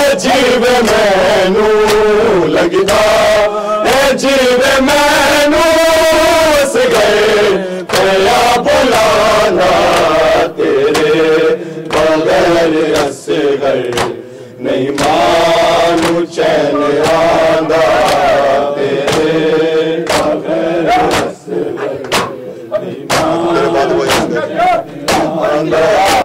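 Male voices chanting an Urdu noha, a Shia mourning lament, in a steady melodic line, with regular sharp strikes of matam (chest-beating) keeping time under it.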